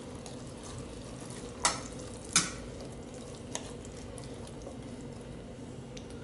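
A fork stirring and tossing dressed pasta salad in a metal pot: soft wet mixing noise, with two sharp clinks against the pot about two seconds in and a lighter one a second later, over a faint steady hum.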